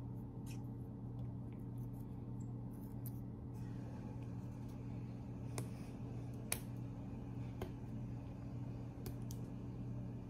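Fingernails picking and scratching at the edge of a roll of clear packing tape, hunting for the loose end: faint scratchy ticks throughout, with three sharper clicks in the second half. A steady low hum runs underneath.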